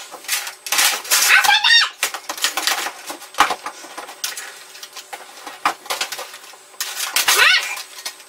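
A computer keyboard being hammered in fast clattering bursts, with a child's shrill shriek about a second and a half in and another near the end.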